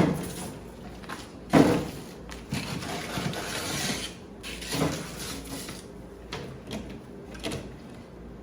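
Household handling sounds: a sharp thump about a second and a half in, then rustling and a few lighter knocks and clicks as things are handled and put away.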